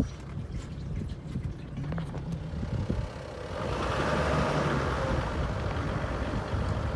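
Motor vehicle running with a steady low rumble. About three and a half seconds in, a rushing hiss comes up and stays.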